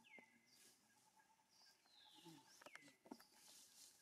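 Near silence: faint outdoor ambience with about five soft, high chirps that fall in pitch, and a couple of faint clicks about three seconds in.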